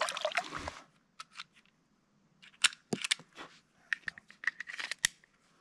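Water splashing briefly at the start, then a handgun being handled: a string of sharp, separate mechanical clicks over about two and a half seconds.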